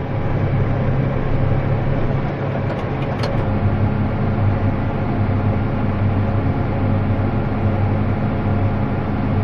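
Diesel engine of harvest farm machinery running steadily, a continuous low drone with no change in speed.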